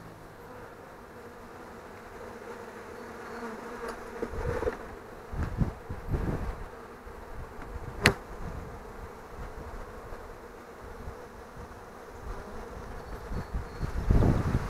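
Honey bees buzzing around an open hive, a steady hum. There are low thumps around the middle and near the end, and one sharp knock about eight seconds in.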